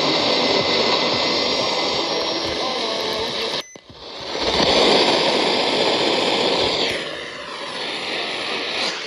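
Loud radio static hiss on a weather-radio broadcast with a weak signal. It cuts out abruptly for a moment about three and a half seconds in, swells back up, then eases to a lower hiss for the last two seconds.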